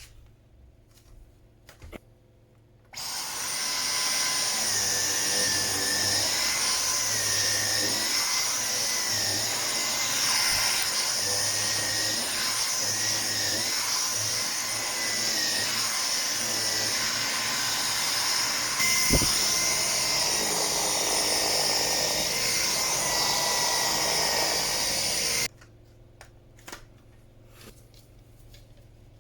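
Dyson Micro 1.5kg cordless stick vacuum switched on about three seconds in, running steadily with a high-pitched motor whine for about twenty seconds, then switched off.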